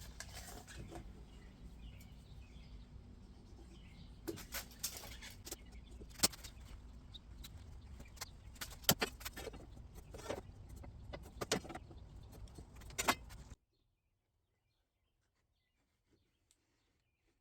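Faint workshop room tone: a low steady hum with scattered light clicks and knocks. The sound cuts out to silence about three-quarters of the way through.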